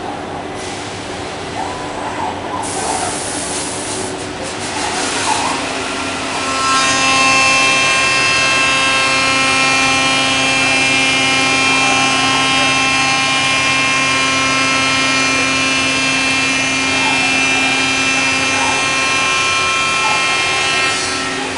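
Bacci Master-Win 5-axis CNC working centre machining solid wood: a hissing rush of machine noise at first, then from about seven seconds in the router spindle's steady high whine of several tones as it cuts.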